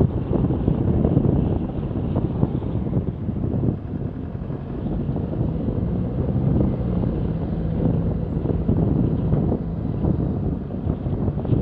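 Wind rumbling over the microphone of a camera on a moving bicycle, mixed with road traffic noise. A steady engine hum comes through for a few seconds in the middle.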